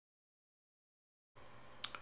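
Near silence: dead silence, then for the last part a faint hiss and low hum, with a small click just before the end.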